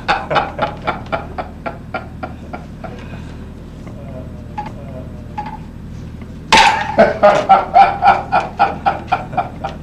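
A man laughing in loud, rhythmic 'ha-ha' bursts that die away. After a quiet stretch of about three seconds, the laughter breaks out again suddenly, at full force.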